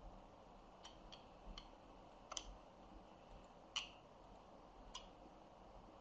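Faint, sharp clicks, about six in all at irregular intervals, over near silence.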